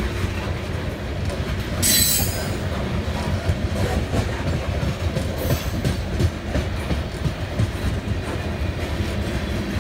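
BNSF coal train cars rolling past with a steady rumble and wheels clacking over the rail joints. A sharp, high wheel squeal comes about two seconds in, and a briefer, fainter one around five and a half seconds.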